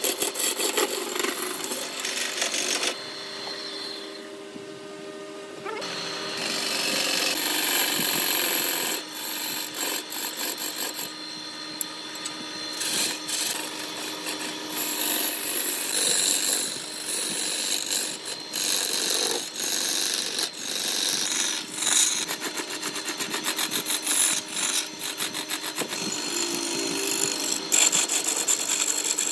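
Turning gouge cutting a large laminated wood blank spinning on a wood lathe: a rough, rapid chattering scrape over the lathe's steady running hum, with a quieter stretch about three to six seconds in.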